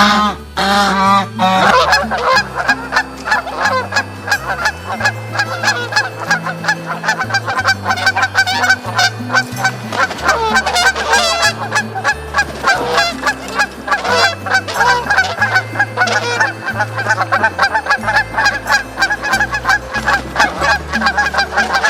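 A flock of geese honking: many rapid calls overlapping, with no break.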